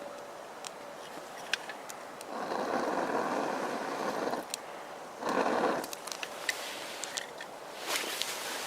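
Breath blown into the bottom vent of a wood-burning Swiss army volcano stove to give the fire air: one long blow of about two seconds, then a short one, with small sharp crackles from the burning twigs.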